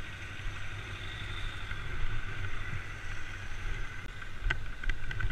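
Steady low rumble of a moving vehicle with wind buffeting the microphone, a faint steady whine above it, and a few faint clicks near the end.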